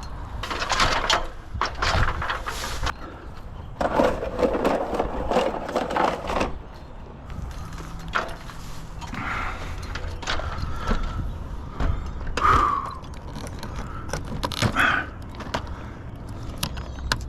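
Irregular scraping, rustling and knocking of hands-on work handling equipment, in bursts with pauses between them.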